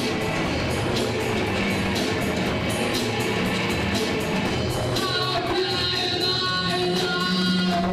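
Live rock band playing, with an electric guitar, and a voice singing over it from about five seconds in.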